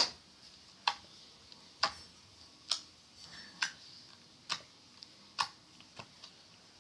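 The small box of a macaron slime toy clicking sharply as it is worked by hand, about once a second, seven times, then a few fainter ticks near the end.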